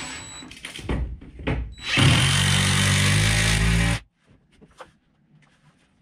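Cordless impact driver driving a lag screw through a steel overhead-rack bracket into a ceiling joist: a few short knocks and bursts, then about two seconds of steady driving that cuts off suddenly.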